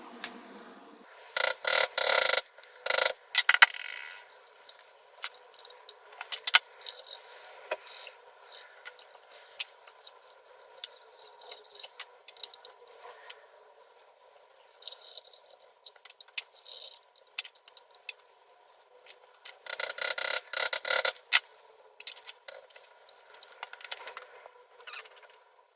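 Irregular scraping and chipping at a wall, bursts of rasping scrape broken by sharp knocks, as a recess is chopped out for a socket back box.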